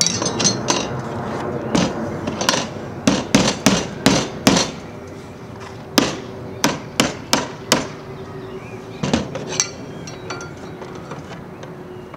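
Claw hammer tapping the corners of a wooden canvas stretcher-bar frame: sharp knocks in quick runs of several taps with short pauses between, knocking the frame's joints into square.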